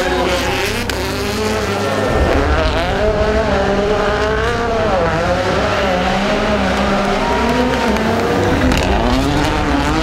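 Rally cars' turbocharged four-cylinder engines revving hard, the pitch rising and falling again and again through gear changes and lifts as the cars pass.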